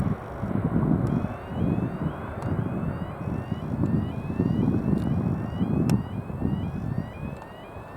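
Boeing 787-8 Dreamliner's jet engines running at takeoff power as it departs, a steady rumble that swells and fades in gusts, with wind buffeting the microphone.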